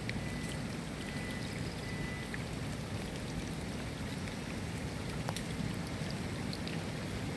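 Steady rain falling, with individual drops ticking now and then and one sharper drop about five seconds in.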